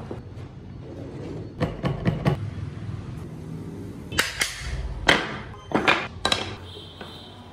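Wooden model parts knocking and clacking on a table as they are handled: several sharp, short knocks in small groups.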